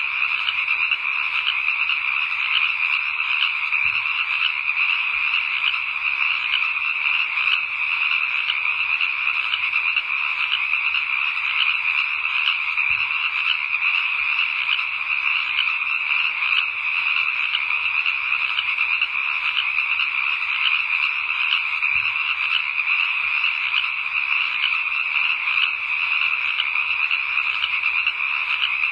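A dense chorus of many frogs calling at once, steady and unbroken, as night ambience.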